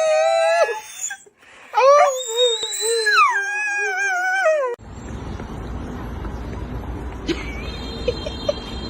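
Dog howling: a wavering howl that breaks off under a second in, then a longer howl that rises and slides back down. About five seconds in it cuts to a steady rushing noise with a low rumble.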